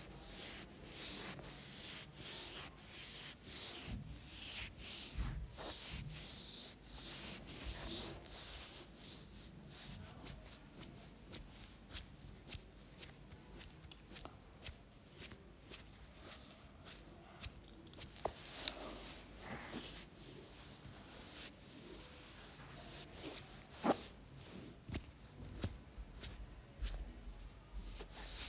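Fingers rubbing and scratching through hair and over the scalp and neck in a head massage, a steady run of short brushing strokes with a few louder clicks.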